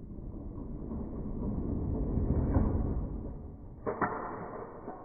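Toy cars rolling, a rumble that grows louder and then fades, followed by a couple of sharp plastic clacks about four seconds in.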